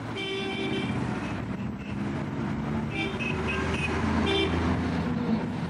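Vehicle horns honking in busy street traffic: a longer blast at the start, then a few short toots about three seconds in and again just after four seconds, over the steady drone of engines.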